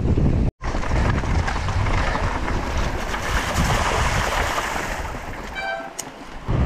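Mountain bike riding down a dirt trail: heavy wind rushing over the camera microphone along with tyre and trail rumble. It cuts out for an instant about half a second in and eases off briefly near the end.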